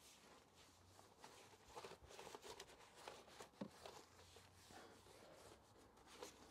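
Faint brushing and rubbing as a detailing brush works snow foam over an engine bay's plastic covers and parts, with many small clicks and taps.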